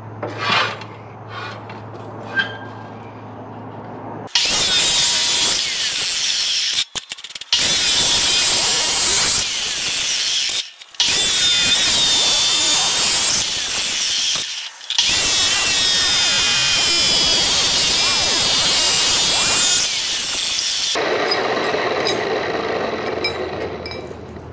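Abrasive chop saw cutting steel bar stock into short pieces, with the wheel grinding loudly through the metal and throwing sparks. It starts about four seconds in after a few light metal clinks, breaks off sharply three times, and winds down near the end.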